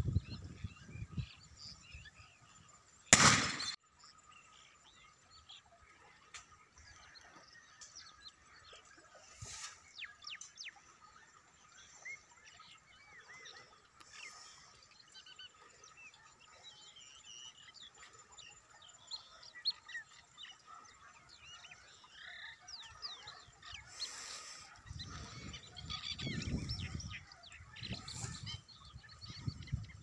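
Many birds calling, with short chirps and whistles scattered throughout over a faint steady drone. A single sudden loud bang comes about three seconds in, and low rumbling noise rises near the end.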